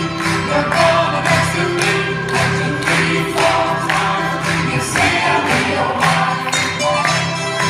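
Live pop song played through a theatre PA: a woman singing lead with backing voices, over acoustic guitar and a steady beat of about two strokes a second.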